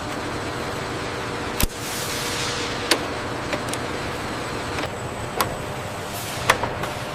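Steady industrial machinery noise with a faint hum, broken by sharp metallic clicks and knocks about once a second, some followed by a short hiss.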